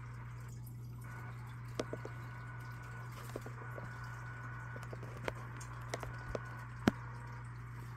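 Scattered faint clicks and taps, about seven of them at uneven intervals and the sharpest near the end, over a steady low hum.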